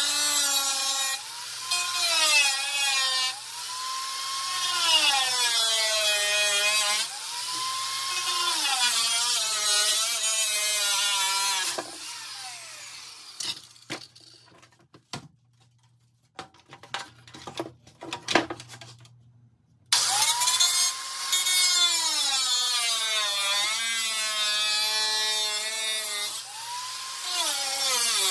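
Angle grinder cutting through a chrome-plated plastic truck grille, its whine dipping and recovering in pitch again and again as it loads in the cut. About halfway through it stops for several seconds, with a few knocks of handling, then starts cutting again.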